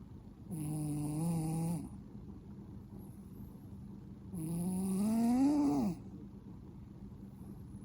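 A heavyset adult tomcat snoring loudly in his sleep: two long snores about four seconds apart, the second rising in pitch before it breaks off.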